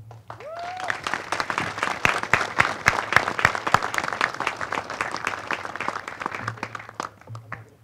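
Audience applause building up about half a second in, with a short rising tone near the start, and dying away near the end.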